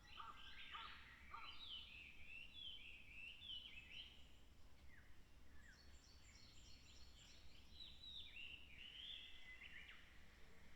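Faint calls of several wild birds: many short chirps and whistles, a lot of them falling in pitch, overlapping, with a brief lull partway through.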